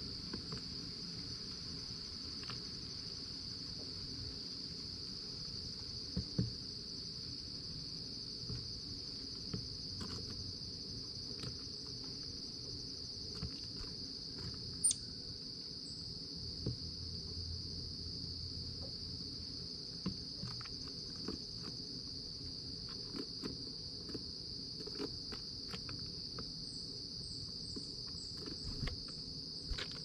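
Steady outdoor insect chorus, a continuous high-pitched trill that does not let up, with scattered small clicks and taps of a bird pecking seed on a wooden feeder tray, more frequent near the end.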